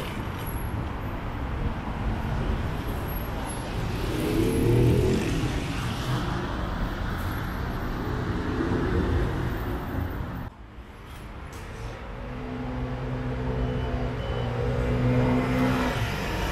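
City road traffic: cars passing and accelerating, their engine hum swelling and fading. The noise drops suddenly about two-thirds of the way through, then builds again with a steady engine drone.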